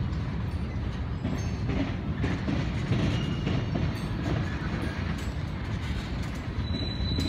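A freight train's cars rolling past: a steady low rumble with scattered faint clicks from the wheels, and a thin high wheel squeal setting in near the end.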